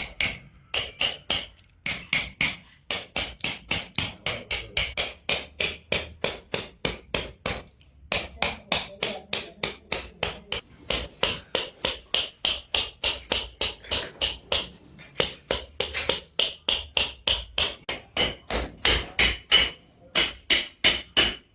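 Rapid, evenly spaced hammer-like tapping strikes, about four a second, with brief pauses about two and eight seconds in.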